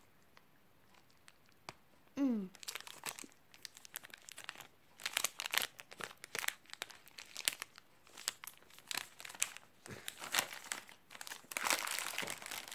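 Plastic sweet and chocolate wrappers crinkling and rustling as they are handled, with some tearing, in quick crackly clusters starting about two seconds in.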